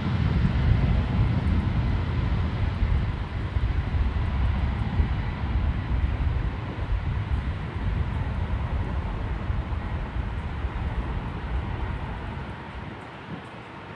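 Airbus A321 jet engines at takeoff thrust: a deep, steady rumble with a faint whine, easing off in the last couple of seconds as the airliner climbs away.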